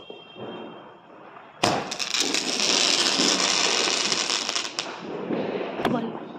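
'Laser show' firecracker going off: it starts suddenly about a second and a half in with a dense crackling of bursting sparks that lasts about three seconds, then fades, with one sharp crack near the end.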